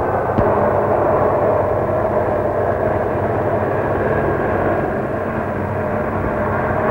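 Engine of a boxy ambulance truck running steadily as it drives, a continuous drone with a short click about half a second in.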